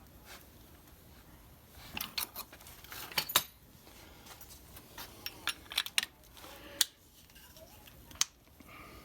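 Sharp metal-on-metal clicks and clacks of Model T transmission band parts and their small clips being handled and fitted, in an irregular string starting about two seconds in.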